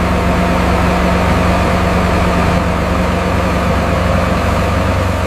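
A motor or engine running steadily and loudly, a low hum with a hiss over it and no change in speed.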